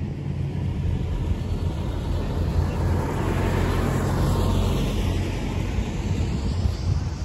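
A bus driving past: engine and tyre noise swelling to a peak about four seconds in and then easing off, falling in pitch as it goes by.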